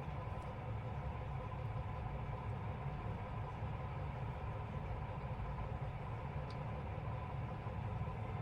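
A steady low rumbling hum, even throughout, with a couple of faint ticks.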